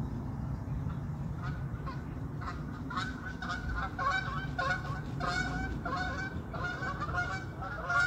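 Geese honking repeatedly, starting faintly about a second and a half in and building into a busy chorus of overlapping calls.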